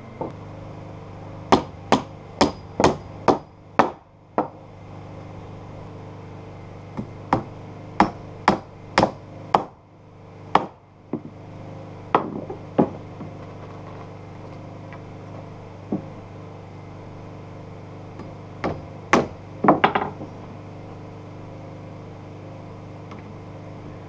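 Claw hammer striking green alder shiplap floorboards as they are fastened down: quick runs of sharp blows separated by pauses, over a faint steady hum.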